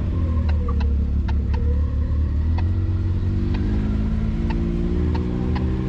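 Side-by-side UTV engine running at low revs with a slowly drifting pitch, while the machine creeps along a rough trail, with scattered sharp clicks and ticks over the engine note.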